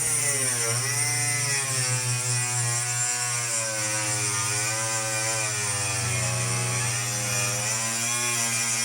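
A motor-driven machine running continuously, its pitch sagging and recovering as if the load on it changes, with a steady low hum beneath.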